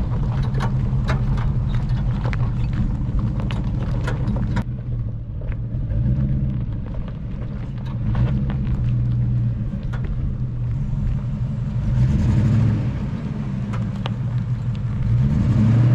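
Supercharged Range Rover P38 engine running as the truck is driven over rough ground, with many short knocks and rattles through the first few seconds. The engine speed rises near the end.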